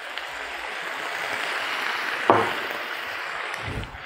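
Brandy poured into a hot frying pan of seared pork and onions, sizzling and hissing as it hits the hot pan for flambéing. A sudden thump about two and a half seconds in.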